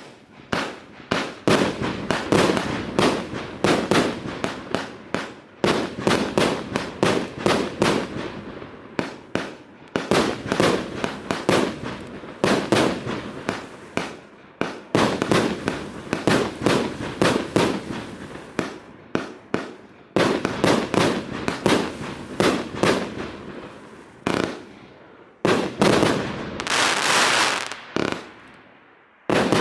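Nico Delta Fire 144-shot compound firework cake firing: rapid volleys of shots and bursts in runs of a few seconds with short gaps between, and a longer hissing stretch about 27 seconds in.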